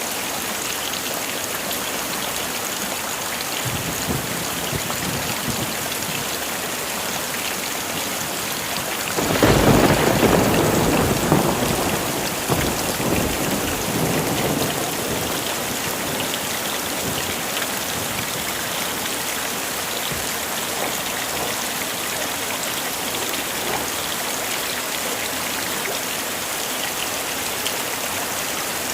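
Heavy rain falling steadily, with a loud clap of thunder about nine seconds in that rumbles away over the next few seconds.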